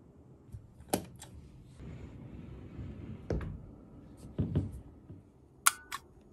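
Handling noises around hanging clothes and a wardrobe: a few knocks and clicks, a stretch of rustling, then two sharp clicks near the end.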